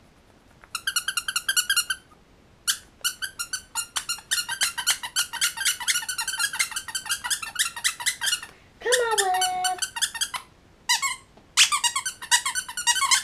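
Squeaky toy squeaked in quick runs of rapid squeaks with short pauses between them, and one longer squeak about nine seconds in that falls in pitch and then holds.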